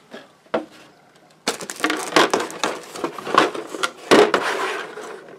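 Plastic model-kit sprue being handled and shifted on the work surface: a couple of light clicks, then from about a second and a half in a loud run of rustling, scraping and clicking that dies down near the end.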